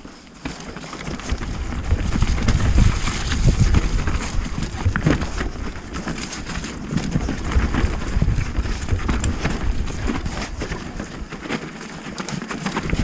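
Mountain bike ridden fast down a rough, rooty dirt trail: tyres rumbling over the ground, with a constant clatter of knocks and rattles from the bike. It starts quieter and grows louder within the first two seconds.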